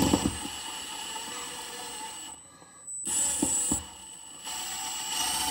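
Milwaukee M18 FID2 impact driver running in its screw mode, driving a screw into a wooden block: a steady high motor whine that stops about two seconds in and starts again under a second later, louder at first.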